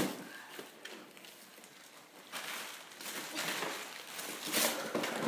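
Wrapping and tissue paper rustling and crinkling as a present is handled and unwrapped, coming and going in several short spells from about two seconds in.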